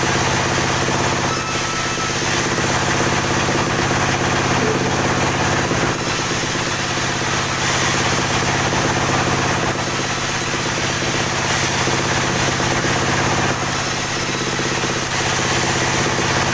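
Band sawmill running steadily, its machine hum unbroken, as the band blade saws slabs off a crooked log; a higher hiss of sawing swells and fades every few seconds.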